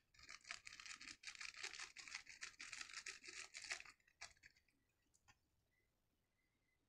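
Crinkling of a plastic-foil garam masala packet as it is squeezed and shaken empty over a cooking pot. The rapid crackle lasts about four seconds, then come a couple of faint clicks.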